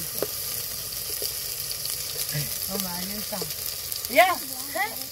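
Steady sizzling hiss of food cooking over a wood fire. Quiet voices in the background, and one short, louder call about four seconds in.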